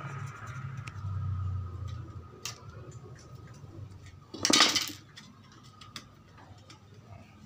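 Light metallic clicks and taps from handling a flexible sword made from an old hand saw blade, with one brief, louder metallic rattle about four and a half seconds in.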